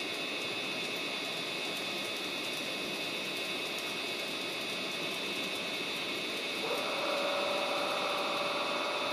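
Sound decoder of a Roco model rail bus playing through its small speaker: a steady hiss with a thin high whine, then about two-thirds of the way in a louder, pitched engine-like sound sets in and holds steady.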